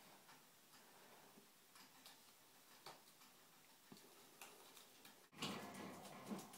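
Near silence with faint, scattered ticks and light rustling. About five seconds in there is a brief dropout, then louder rustling.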